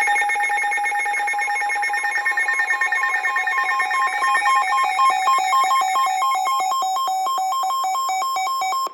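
Several weather alert radios sounding their alarms at once: a loud chorus of electronic tones, first held steady, then from about four seconds in alternating and pulsing. It cuts off abruptly at the end.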